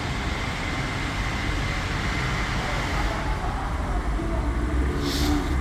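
Steady rushing background noise of vehicles, with a short high hiss about five seconds in.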